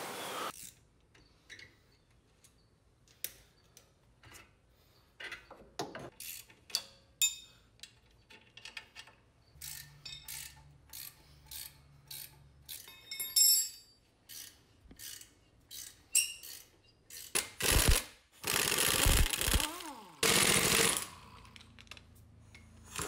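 Metal tools clinking and knocking against the brake caliper, bracket and rotor, then near the end an impact wrench running in three short bursts, its motor pitch rising and falling with each.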